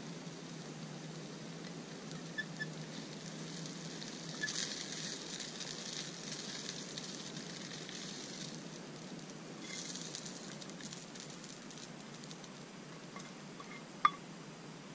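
Small canister camp stove burning with a steady hiss, with two spells of crackling sizzle from the food in its pan as it is stirred and dished out. A single sharp click comes near the end.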